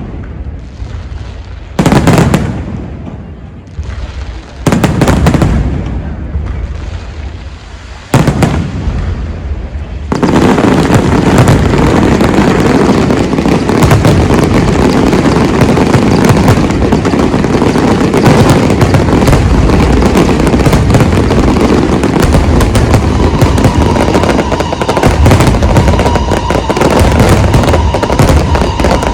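Aerial fireworks display: three heavy single bangs a few seconds apart, each followed by a rolling echo. About a third of the way in, a dense, continuous barrage of bangs and crackling begins and keeps on.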